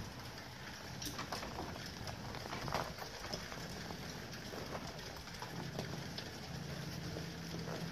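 Rustling and crinkling of plastic packaging and stiff nylon storage bags being unpacked and handled, with scattered light knocks. A low steady hum runs underneath and becomes plainer in the second half.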